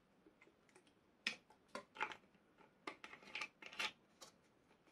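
Bottle of malt vinegar being shaken over a plate of chips and put down: a string of faint, irregular sharp clicks and taps, starting about a second in.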